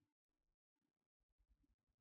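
Near silence: very faint background noise that cuts in and out.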